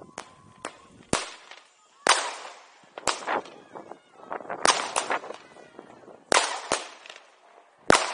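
Fireworks going off: about ten sharp bangs at irregular intervals, each trailing off briefly, the loudest about two seconds in, a little past six seconds and near the end.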